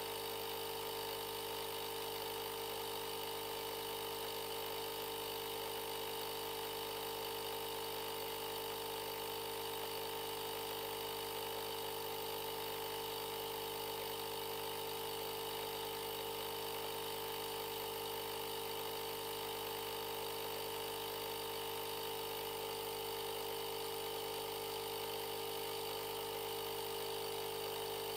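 Einhell Pressito hybrid air compressor running steadily with an even hum as it inflates a latex balloon through its hose.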